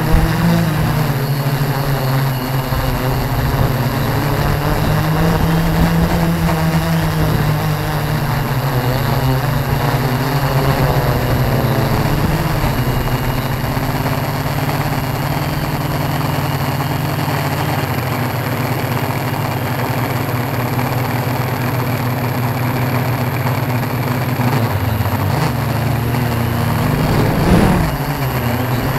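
Tarot 680 Pro hexacopter's motors and propellers humming steadily in flight, the pitch shifting a little now and then as the throttle changes, with a brief louder swell near the end.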